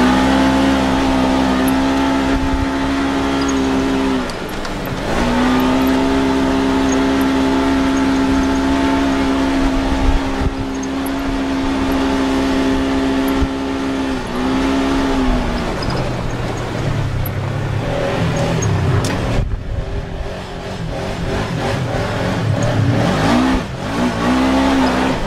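Side-by-side UTV engine running at high, steady revs under throttle. The pitch drops and climbs back when the throttle is eased about four seconds in and again around fifteen seconds. For a stretch after that the revs are lower and uneven, then they rise again briefly near the end.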